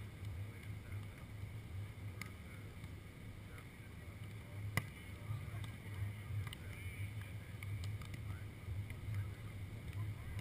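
Wind rumbling on the microphone, with faint distant voices and one sharp smack about halfway through.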